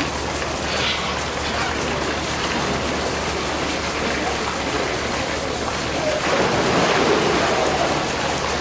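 Steady hiss of water, an even splashing rush with no break, with faint voices in the background.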